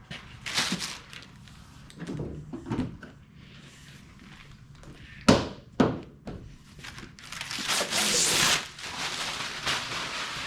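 Knocks and clunks of hands working on a car's front bumper and its parts: a few soft thumps, then two sharp knocks about half a second apart a little past halfway, followed by a longer scraping rustle.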